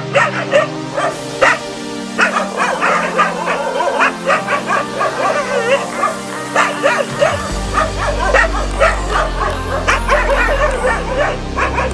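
Rajapalayam dogs barking repeatedly, many short barks in quick succession, over background music.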